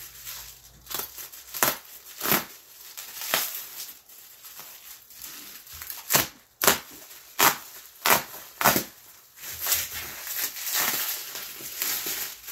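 Bubble wrap being cut and pulled off a package by hand: plastic crinkling and rustling, broken by many sharp, irregular crackles.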